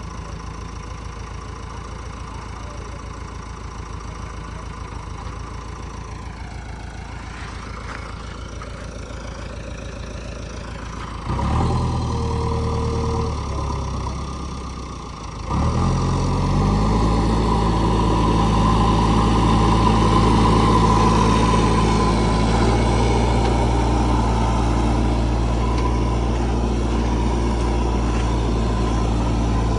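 Diesel engine of a vehicle working in mud, idling steadily, then revving up suddenly about eleven seconds in. It drops briefly near fifteen seconds, then runs loud and steady under load through the rest.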